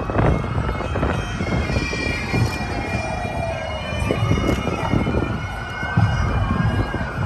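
Bagpipes playing, over an emergency-vehicle siren that slowly falls in pitch, rises over several seconds and starts to fall again near the end, with low thumps underneath.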